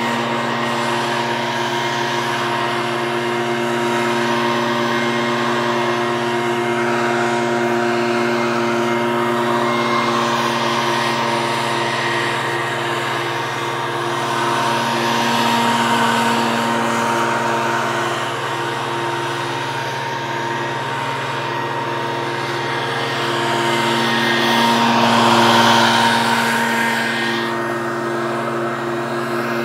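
Leaf blower running at a steady speed: a constant motor hum over a rushing hiss, swelling louder briefly around the middle and again near the end.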